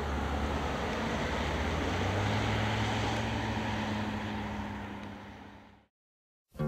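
Vehicle engine running with a steady low hum over road noise, fading out to silence about five seconds in.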